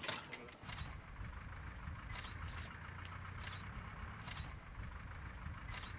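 A vehicle engine idling as a low, steady hum that starts about half a second in, with a handful of sharp clicks scattered through it.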